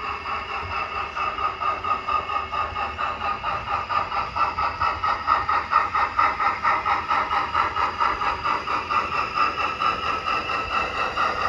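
Model train running on the layout: a steady mechanical hum with a rapid, even pulsing of about five beats a second, getting louder through the first half.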